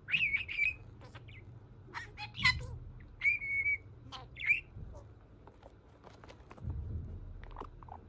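Budgerigar chirping and whistling: a warbling chirp right away, a few clicking chirps, a short held whistle about three seconds in and one more chirp, then only a few faint clicks.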